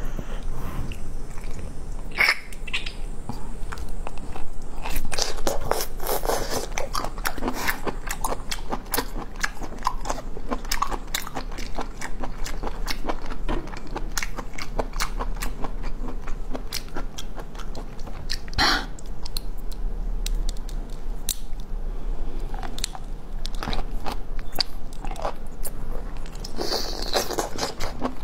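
Biting and chewing raw geoduck clam, a run of crunchy, wet mouth clicks with one louder crunch about two-thirds of the way through.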